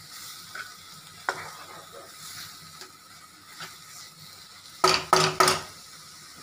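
A wooden spatula stirs and scrapes gram-flour-coated capsicum in a kadhai over a faint, steady sizzle. About five seconds in, three sharp knocks come in quick succession as the spatula is knocked against the pan.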